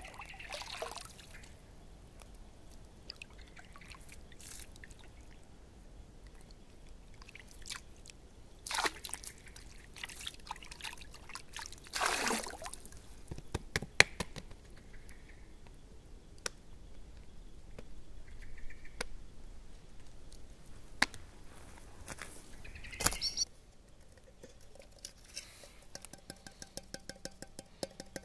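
Pond water splashing and dribbling as a collapsible bowl is dipped and swished clean at the water's edge: a few separate splashes, the longest about 12 seconds in, with drips and small ticks between. Near the end it turns quieter, with many faint small ticks.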